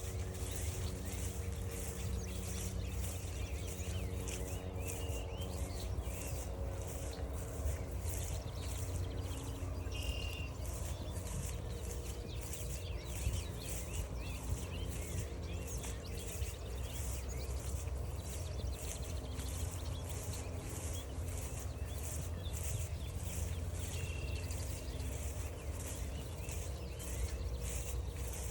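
Outdoor walking ambience: regular footsteps about one and a half a second over a steady low rumble, with a faint steady hum and a couple of short bird chirps.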